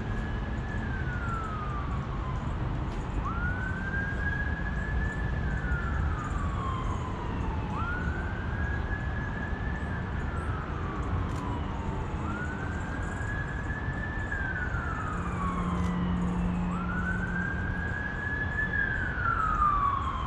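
Emergency vehicle siren wailing: a slow rise in pitch, a hold, then a long fall, repeating about every four and a half seconds, over a low steady rumble.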